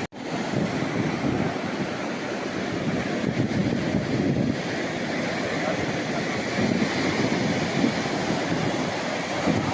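Sea surf washing on the shore, with wind buffeting the microphone in a steady rushing noise.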